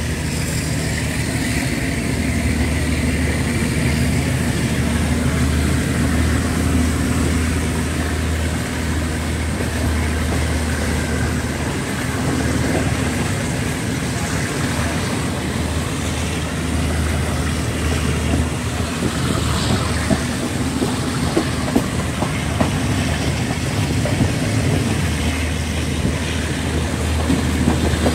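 Diesel passenger train running, heard from a carriage window: a steady low drone with road and wheel noise, and in the second half, irregular clicks of the wheels over rail joints.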